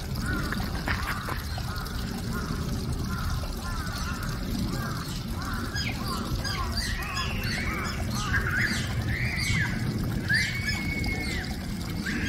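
Asian small-clawed otter calling with repeated short high chirps that come faster from a few seconds in, with a few longer, level squeals near the end. A steady low rumble runs underneath.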